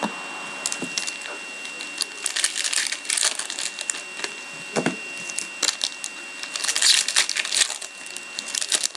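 Crinkling and tearing of a foil trading-card pack wrapper as it is opened, with cards handled in the hands. It comes in two spells of dense crackling, about two to three seconds in and again around seven seconds in.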